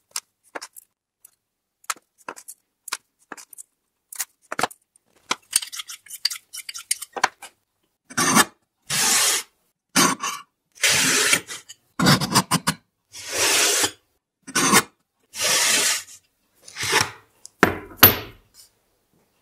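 Steel on steel as tool-holder blanks are marked out and handled: light clicks and ticks of a steel square set against the bar, then about eight short scraping strokes. A couple of dull knocks come near the end as steel blocks are set down.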